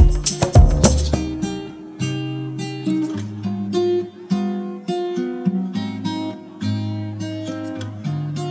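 Music soundtrack: loud, dense strikes for about the first second, then a melody of plucked notes over held bass notes.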